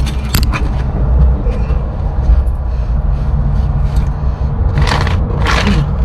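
Steady low mechanical hum, like a motor running nearby. Near the start come a few short scrapes and knocks of a rubber hose and wiring being handled, and about five seconds in two brief rustles.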